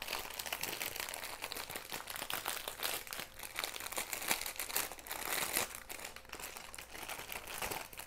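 Small plastic bags of diamond-painting drills crinkling and rustling, with many irregular crackles as they are handled and sorted.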